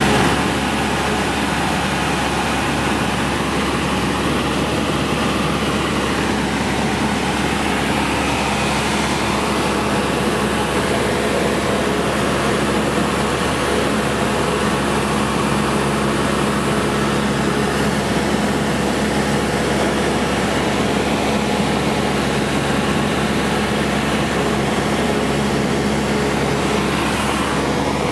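Cessna 172 SkyHawk II's four-cylinder Lycoming piston engine and propeller running steadily in flight, heard from inside the cabin with the rush of air over the airframe.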